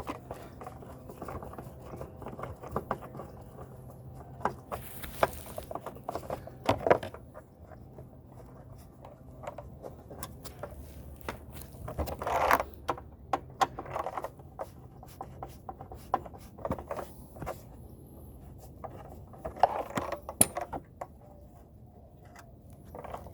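Hand tools working on a lawn mower's deck as two hidden screws near the discharge chute are taken out: irregular clicks, taps and scrapes of metal on metal and plastic, with louder scraping about twelve seconds in and again near the end.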